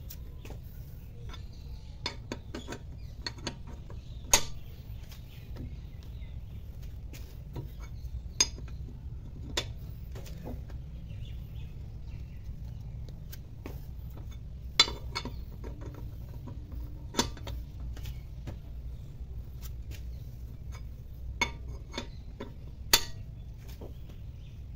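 Sharp metallic clinks and knocks of a wheel wrench on a car's lug nuts as they are tightened a little at a time, about seven loud ones spread irregularly, over a low steady hum.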